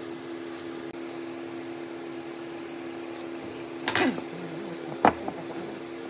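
A steady low hum with two sharp knocks, the first and loudest about four seconds in, the second about a second later.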